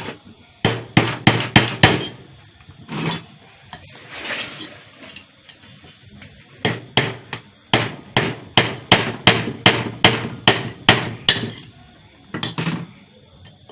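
Hammer blows on metal, knocking the second ball bearing out of a ceiling fan's housing. A quick cluster of strikes comes first, then a steady run of about three to four blows a second, and a couple more near the end.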